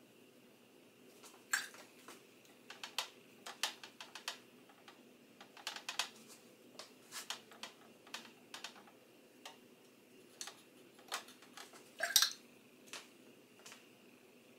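Paintbrush clicking and tapping against a watercolour palette as paint is picked up and mixed: irregular light taps, loudest about a second and a half in and again near the end.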